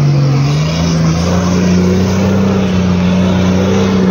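Toyota Land Cruiser 80 series engine revving hard under load as the 4x4 pulls through a muddy track; its pitch climbs about a second in and then holds high and steady.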